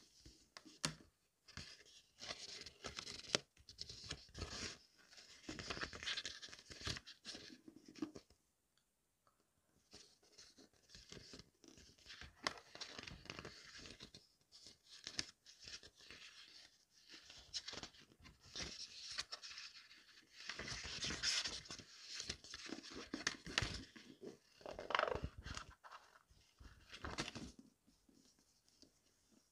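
Paperback book being handled: its glossy cover and pages rustle and crinkle as it is turned over, opened and flipped through, in irregular spells with a short pause about nine seconds in.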